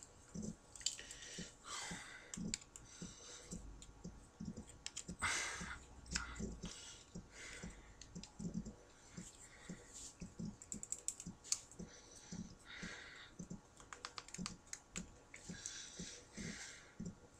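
Faint, irregular clicks and taps of small plastic parts as a head is worked onto a Marvel Legends Venom action figure, with a few soft rustles.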